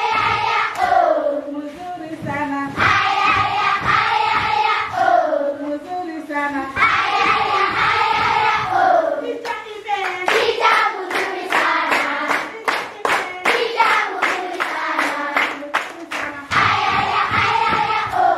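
A classroom of children singing together in chorus, clapping their hands to the song. From about ten seconds in there is a quick run of sharp claps for several seconds, and then the singing comes back to the fore.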